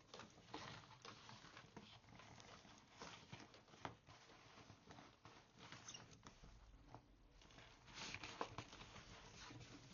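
Faint walking sounds picked up close on a clip-on microphone: irregular light scuffs, clicks and clothing rustle from a person walking a dog.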